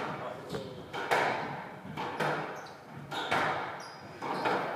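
Squash rally: the ball is struck by rackets and hits the court walls with sharp, echoing smacks about once a second, with brief squeaks of court shoes on the wooden floor between shots.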